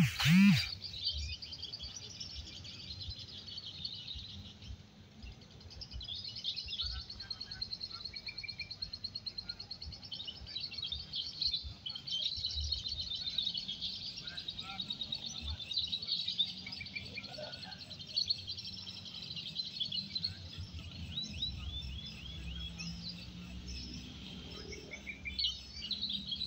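Many caged contest songbirds chirping and trilling at once in rapid, overlapping phrases, over a low background murmur; a brief loud voice at the very start.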